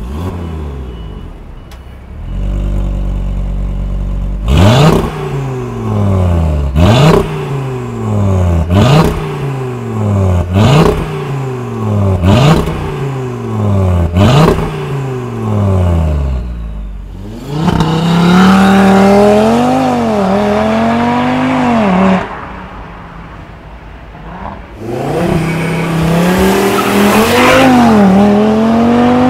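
Audi RS3 8Y's turbocharged five-cylinder, fitted with a catalytic aftermarket downpipe and the stock cat-back exhaust, idling, then revved hard about six times, each rev rising fast and falling back to idle. Later it runs under hard acceleration twice, a sustained loud note whose pitch rises and dips.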